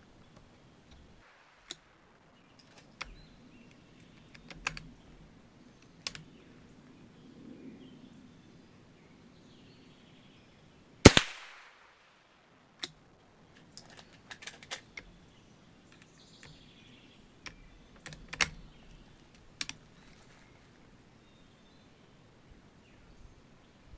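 A single .22 rimfire rifle shot from an Ithaca M49 lever-action about eleven seconds in, a sharp crack with a short echo. Around it come lighter scattered clicks and clacks of the rifle being handled.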